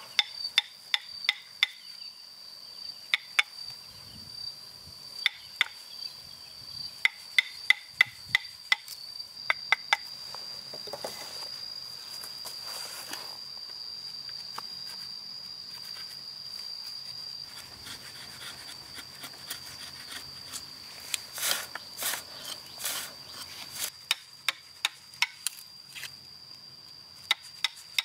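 Wood chisel chopping into a short log round: runs of sharp knocks with pauses between them, busiest near the start and again near the end. A steady high insect trill sounds underneath.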